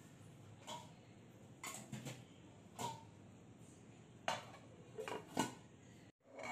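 Faint metal cookware clinks and knocks, about seven scattered short strikes, some with a brief ring.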